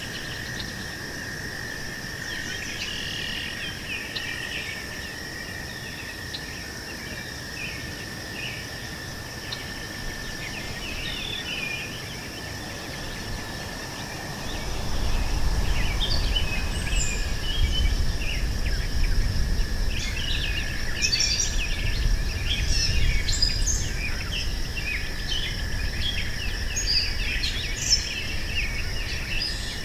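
Meadow ambience: insects droning steadily at two high pitches, with birds chirping here and there, the chirps getting busier in the second half. About halfway through, a low rumble comes in and the whole thing gets louder.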